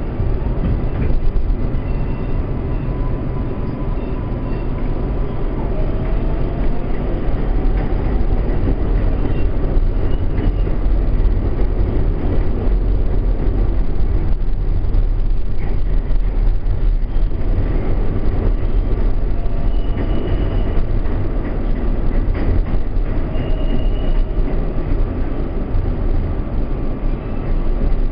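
Interior of an R142A subway car under way: a steady rumble of wheels on rail and car body noise, with faint whining tones that rise now and then.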